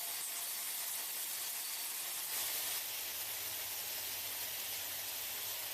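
Steady hissing noise of battery-factory machinery, with a low hum joining about two and a half seconds in.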